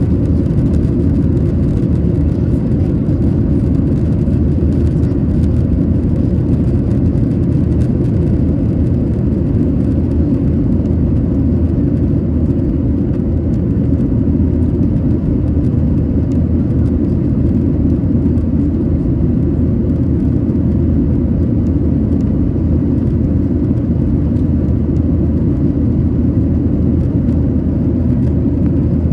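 Steady low rumble of a Boeing 737-800's CFM56 engines and airflow, heard from inside the passenger cabin, holding an even level throughout.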